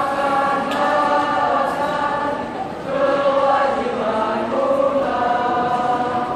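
School choir singing together in held, sustained notes, with a short break between phrases a little under three seconds in.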